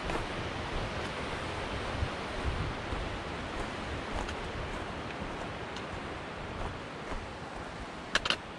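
Steady wind noise on the microphone, a rushing hiss with irregular low buffeting. Near the end come a couple of sharp clicks, footsteps on the rocky trail.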